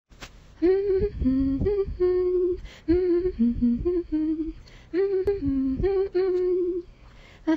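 A woman humming a simple tune: three short phrases of held notes with a breath between each, and a fourth phrase starting near the end.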